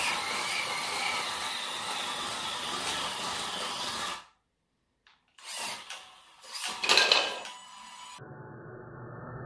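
Small electric motor of an FTX Hooligan Jnr 1/28 micro RC rally car whining steadily as the car drives on a laminate floor, with tyre rush. The sound cuts off about four seconds in. Two short louder bursts follow around six and seven seconds.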